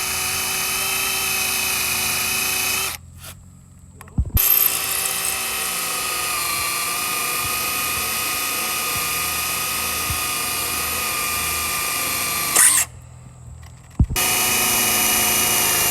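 Power drill running at a steady pitch while drilling out a door-latch rivet, in three runs: about three seconds, then after a short pause about eight seconds, then again near the end.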